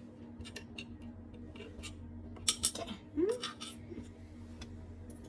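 Light metallic clinks and ticks of hardware being handled during a furnace repair, with two sharp clicks about halfway through, over a steady low hum.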